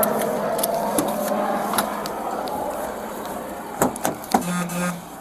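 Rustling and movement noise on a body-worn camera, then sharp clunks of a patrol car's rear door being opened a little before four seconds in, followed by a brief low buzz.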